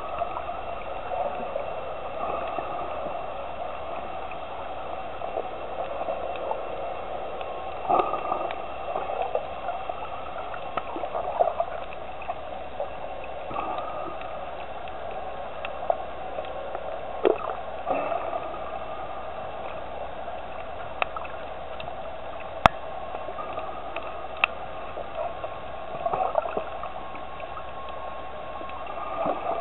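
Water heard underwater: a steady rush with irregular gurgling swells and a few sharp clicks.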